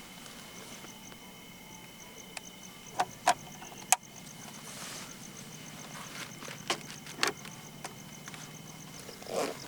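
Several sharp knocks and clacks of hard objects being handled and set down, in two clusters a few seconds apart. Under them runs a faint, high, evenly pulsing ticking.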